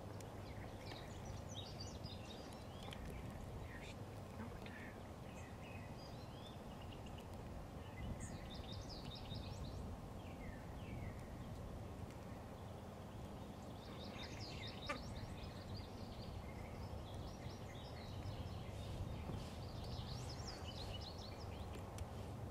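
Quiet woodland ambience: songbirds chirping and trilling in several short spells over a steady low background hum, with one light click about two-thirds of the way through.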